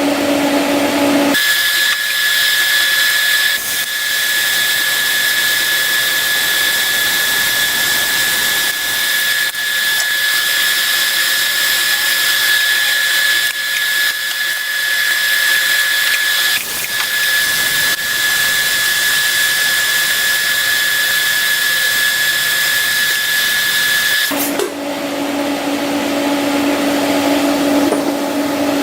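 TIG welding arc from an Everlast 255 EXT inverter welder: a steady hiss with a thin high whine, starting about a second in and cutting off sharply about 24 seconds in. Before and after the arc, a steady machine hum.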